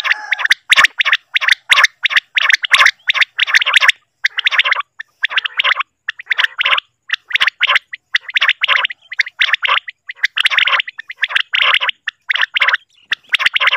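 Recorded common quail (batair) calls played as a hunting lure: short bursts of rapid, rasping notes repeating with brief gaps.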